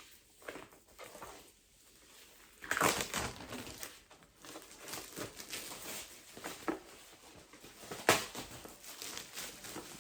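Packaging of a bath caddy set being torn open and handled: irregular crinkling and rustling, louder about three seconds in, with a sharp click a little after eight seconds.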